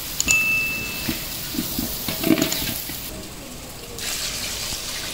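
Metal ladle stirring and scraping chicken masala in an aluminium cooking pot, with a sizzling hiss and light clinks. A short, high ding rings once near the start.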